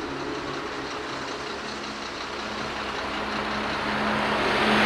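Heavy vehicle engine running with a steady hum, while a rush of road and engine noise grows louder toward the end as an oncoming truck draws near.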